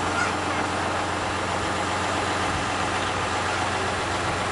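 Small narrow-gauge diesel locomotive's engine idling steadily with a low hum.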